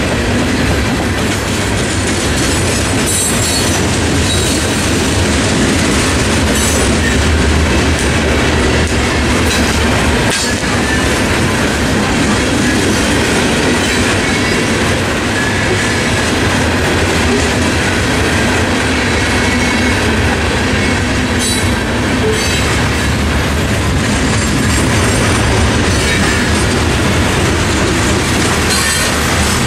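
Freight train of coal hopper cars rolling past at close range: a steady loud rumble and rattle of steel wheels clacking over the rail joints, with a few sharp clanks from the cars.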